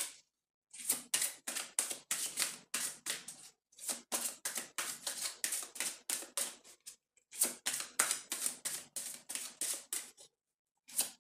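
A deck of cards being shuffled by hand: quick, even slaps of cards, about four or five a second, in runs broken by three short pauses.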